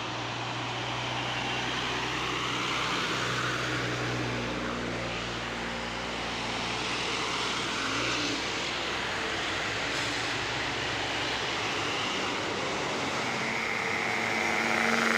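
Road traffic on a hill climb: a heavy vehicle's engine running steadily under load over tyre and road noise, getting louder near the end as it comes closer.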